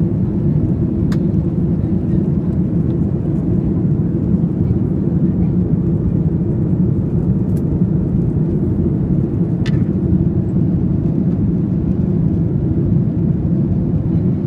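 Airplane taking off: a loud, steady low rumble of engines and airframe, with two faint clicks.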